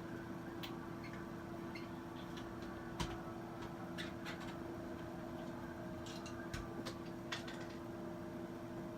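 Scattered light clicks and taps at irregular intervals over a steady hum, the sharpest click about three seconds in.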